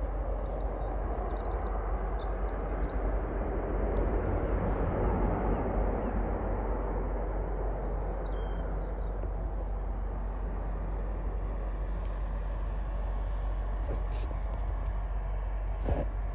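Jet engines of a landing Boeing 737, a steady roar that swells to its loudest about five seconds in and then holds, heard from the ground.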